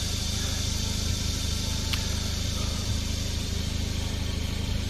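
Car engine idling with a steady low hum; a faint click about two seconds in.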